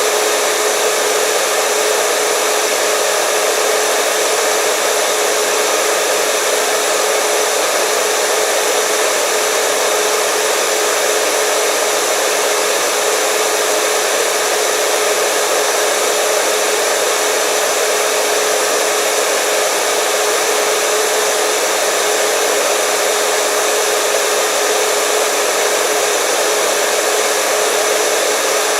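Hair dryer running steadily: a constant loud rush of air with a steady motor whine, unchanging throughout.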